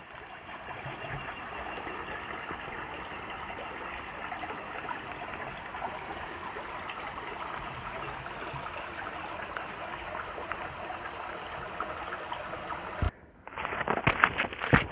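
Shallow rocky creek trickling and burbling over stones, a steady water sound. Near the end it cuts off suddenly and gives way to footsteps on a dirt track, a run of sharp steps.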